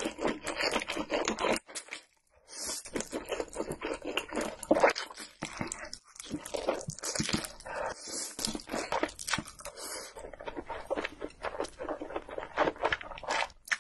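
Close-miked ASMR eating sounds: long slurps of a mouthful of stir-fried instant noodles, then wet chewing, with short pauses between.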